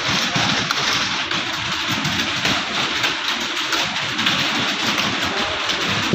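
Many computer keyboards clattering at once as a roomful of students type non-stop: a dense, steady patter of key clicks.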